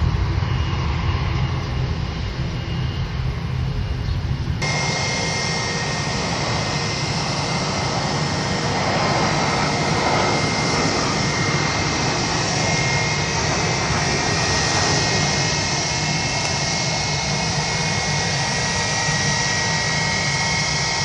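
Jet airliner engines running with a steady rumble and a high whine as the airliner comes in low to land with its gear down. The sound is loudest around the middle.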